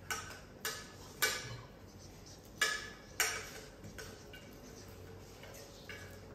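Spoon clinking against a stainless steel cooking pot while stirring: several sharp clinks with a short ring, the loudest in the first three and a half seconds, then a few fainter taps.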